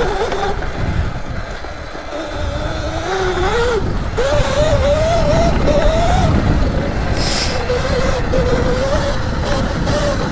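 Electric dirt bike motor whining as it is ridden off-road, the pitch falling and rising with the throttle and jumping up sharply about four seconds in, over a steady low rumble. There is a short hiss partway through.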